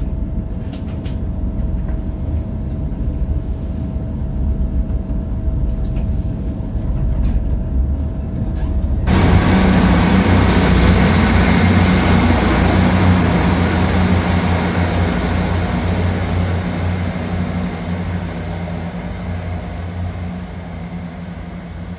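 Train running along the line: a steady low rumble with a faint steady hum. About nine seconds in it abruptly becomes louder and hissier, then slowly dies away.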